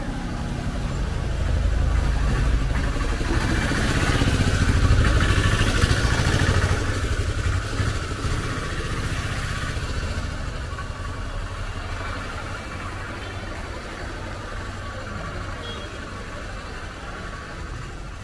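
A motor vehicle's engine running close by, growing louder over the first few seconds, loudest about five seconds in, then slowly fading under a steady street rumble.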